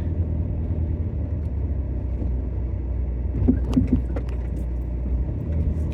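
Low, steady road and engine rumble inside a moving Skoda Octavia, with a few short clicks and squeaks from the suspension about three and a half to four seconds in. The owner suspects a worn anti-roll bar drop link.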